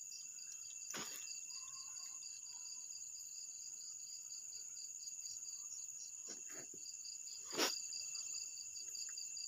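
Crickets and other night insects chirring steadily, one of them in a fast, even pulse. A few short knocks cut through, the loudest about three quarters of the way in.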